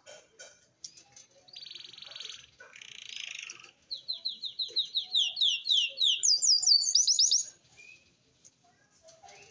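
Young cinnamon-mutation finch singing its immature, still-developing song. Two buzzy phrases come first, then a run of quick down-slurred notes, about four or five a second, that climbs higher and faster before stopping about three-quarters of the way through.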